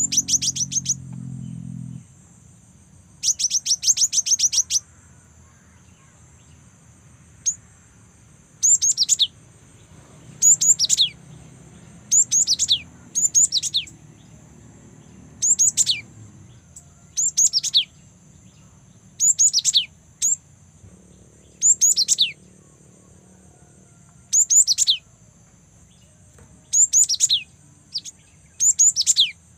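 A young cinereous tit (gelatik batu) calling: rapid runs of very high, thin notes at the start and again about three seconds in, then short groups of quick falling notes repeated every second or two.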